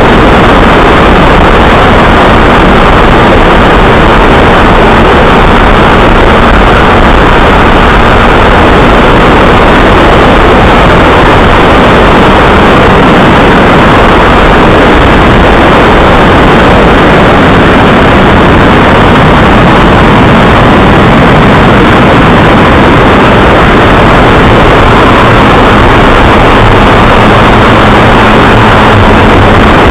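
Kawasaki Ninja 250R's parallel-twin engine running under way, largely buried under loud, steady wind rush on the small camera's microphone.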